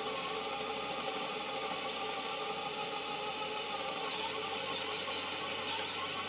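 Vessel 220USB P1 electric screwdriver driving a 7/32-inch drill bit into plywood, its small motor and gearbox running steadily without stopping.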